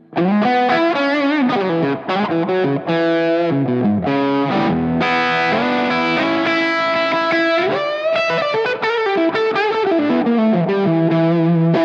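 Overdriven electric guitar lead lines, played on a 1976 Gibson ES-335 through a Zendrive overdrive pedal. Single sustained notes with bends and slides, including a slide up about two-thirds of the way through and a falling slide at the end.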